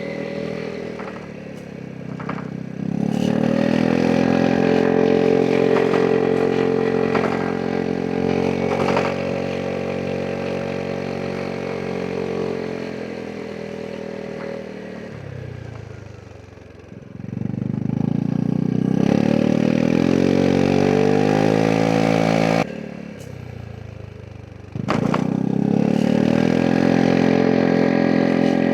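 Vespa GTS 300 SuperSport scooter's single-cylinder engine under throttle while riding. It pulls hard and steadily, eases off and dips, then picks up again with rising pitch. The throttle shuts abruptly, and the engine pulls hard again shortly after.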